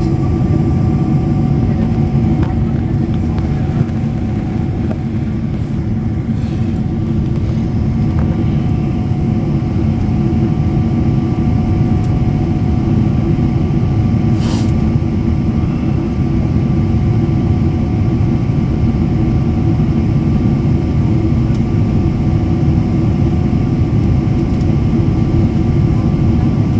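Steady cabin noise of a jet airliner in flight: an even low rumble of engines and rushing air, with two faint steady whining tones above it. A single brief click about halfway through.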